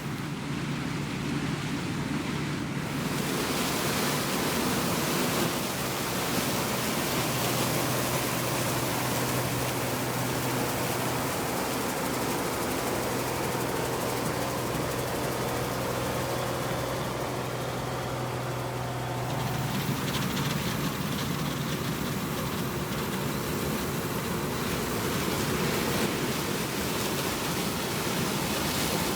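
Harvest machinery engine running steadily under a constant rushing noise; the engine's hum changes pitch about twenty seconds in.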